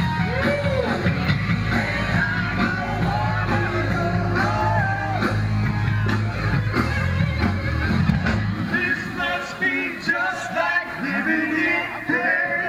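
Live rock band playing with a singer during a sound check. The low bass notes stop about nine seconds in, and the singing voices carry on.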